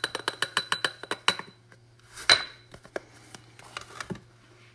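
A jar of coarse ground black pepper shaken into a ceramic ramekin: a quick rattling run of taps, about eight a second, for over a second. A single louder clink of glass about two seconds in, then a few light knocks.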